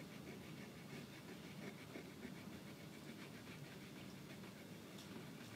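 Faint rubbing of a fingertip blending oil pastel on paper, in quick repeated strokes.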